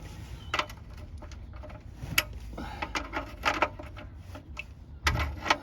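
Scattered metal clicks and knocks from a 21 mm socket wrench being fitted and worked on a car's oil sump drain plug.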